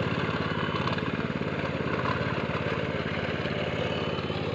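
Engine of a paddy plowing machine (hand tractor) running steadily, its rapid even firing pulses unchanged throughout.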